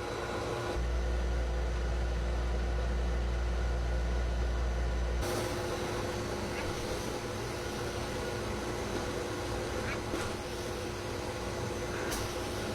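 Pet grooming blow dryer running steadily, a constant rush of air with a steady motor whine, while a cat is dried inside an enclosed cage. A deep low hum sounds along with it for a few seconds near the start.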